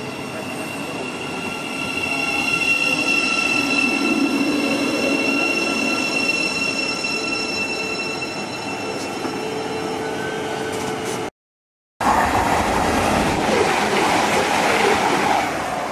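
Thameslink Class 700 electric multiple unit moving out along the platform with a steady high whine. After a brief break, an East Midlands Trains Class 222 Meridian diesel unit passes at speed in a loud rush of noise that falls away near the end.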